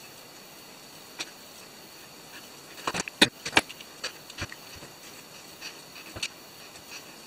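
Scattered clicks and knocks of small parts being handled: brushless drone motors and a carbon-fibre frame knocked together while being test-fitted. A quick run of sharper clacks comes about three seconds in, with single clicks before and after.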